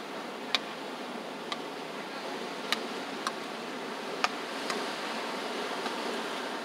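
Beach paddleball players trading hits: sharp paddle-on-ball cracks about seven times, unevenly spaced half a second to a second apart, over the steady wash of surf.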